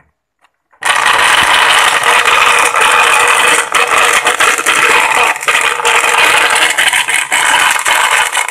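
Panasonic blender running with water in its glass jar: a loud, irregular clattering grind. This is the abnormally loud running it was brought in to be repaired for. It starts about a second in and stops near the end.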